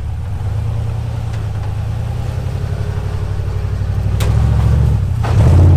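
Rock crawler buggy's engine at low, steady revs as it crawls up a rock ledge, growing louder near the end as it pulls harder. A single sharp click about four seconds in.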